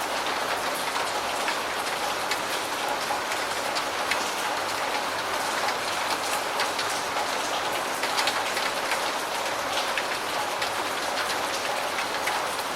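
Steady rain falling, an even hiss with many small sharp drop ticks over it.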